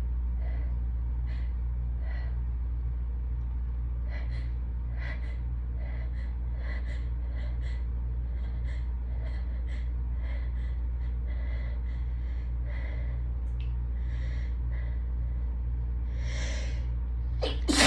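Hay fever sneezing fit: short sniffs and gasping breaths, one or two a second, build through a longer in-breath to a loud sudden sneeze right at the end. A loud air conditioner hums steadily underneath.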